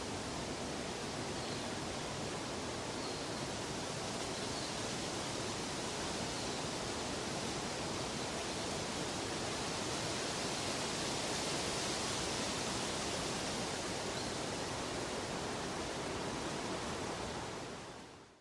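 Steady, even rushing noise with no distinct events, of the kind used as a sleep soundscape; it fades out to silence near the end.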